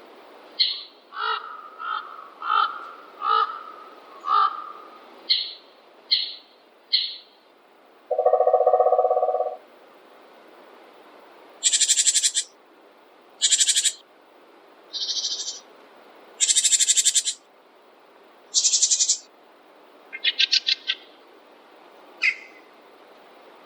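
Forest birds calling. A run of about nine short calls opens the stretch, followed by a loud, low, buzzy call lasting about a second and a half. Then come several harsh, screechy calls and a fast rattling call.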